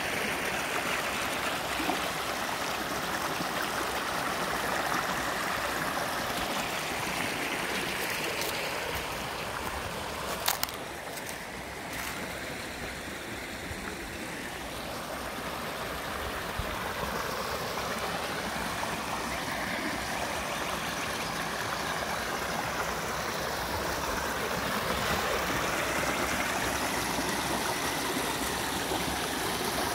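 Shallow creek water running and splashing in small cascades over rock ledges, a steady sound that softens around the middle and grows fuller again near the end. A few sharp clicks about ten seconds in.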